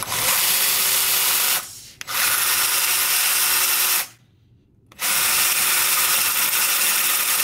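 Cordless drill running a 3/16-inch bit through a cast-iron compressor cylinder wall to open up a port hole. It runs steadily in three spells, stopping briefly twice.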